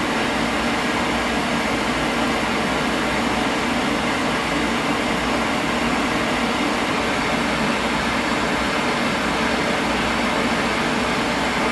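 Residential oil boiler's burner firing steadily: a constant, even rushing noise that does not change.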